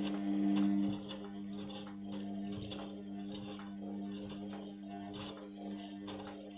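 Indesit washing machine running on a Synthetics 60 wash: a steady hum with irregular light clicks and knocks over it, getting quieter about a second in.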